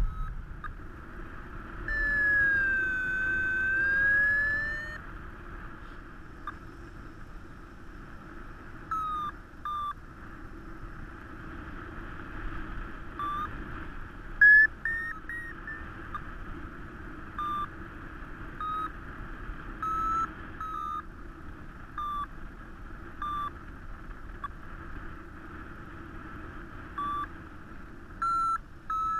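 Paragliding variometer: a drawn-out tone that dips and rises in pitch, then short separate beeps that shift in pitch, with a quick higher run of beeps about halfway through as the wing finds lift. Steady wind rush of the airflow on the microphone underneath.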